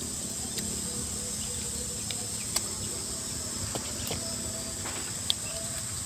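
Steady high chirring of crickets over a low rumble, with a few small sharp clicks and mouth sounds from grilled fish being picked apart by hand and chewed.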